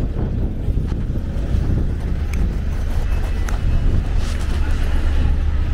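Steady low rumble of city street traffic, with red double-decker buses running alongside the pavement, and wind buffeting the microphone.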